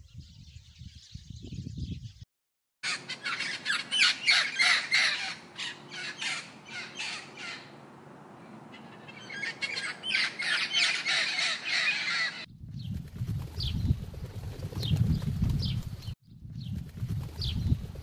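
Blue-and-gold macaws squawking, loud harsh calls repeated over and over for about ten seconds. Before them come brief high chirps and a moment's break. After them a flock of feral pigeons is heard, with low thuds and short high chirps.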